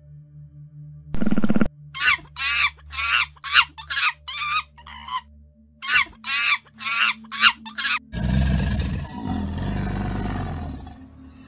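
A quick run of about a dozen short, high animal calls, each wavering in pitch, followed about eight seconds in by a loud, noisy, low sound lasting some three seconds.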